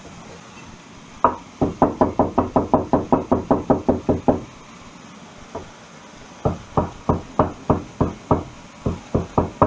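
Cleaver chopping garlic on a wooden chopping board. A quick run of knocks, about six a second, lasts some three seconds. After a pause the chopping starts again about six and a half seconds in, a little slower, about four knocks a second.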